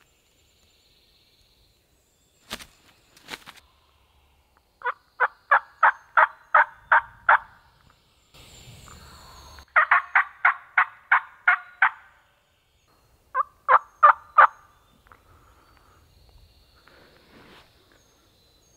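Turkey yelping: three runs of loud, evenly spaced yelps, about eight notes, then eight, then four, each run lasting a second or two.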